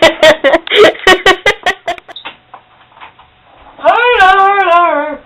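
A person's voice: a quick run of short pitched yelps or laughs that fades out over the first two seconds, then after a pause one long, drawn-out cry falling in pitch.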